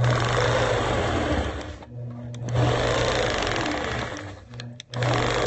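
Sewing machine stitching straight quilting lines through a quilt in three runs of steady motor hum and needle chatter, stopping briefly about two seconds in and again near the end.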